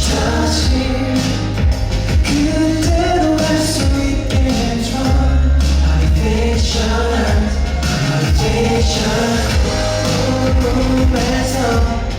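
K-pop boy group song played loud, with singing over a backing track that has a heavy bass beat.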